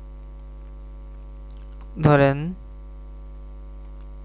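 Steady electrical mains hum, a low buzz with many evenly spaced overtones, running under the recording. A man speaks one short word about two seconds in.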